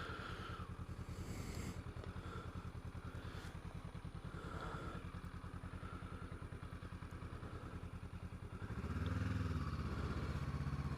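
Motorcycle engine running at a steady low idle, then the revs rise as the bike pulls away about nine seconds in.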